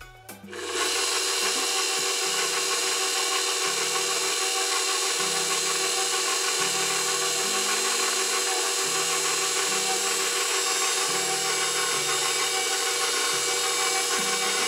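Electric stand mixer starting up about half a second in and then running at a steady speed with a constant hum, its dough hook mixing flour, milk, egg and butter into bread dough.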